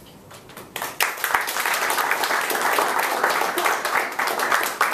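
Audience applauding, the clapping breaking out about a second in.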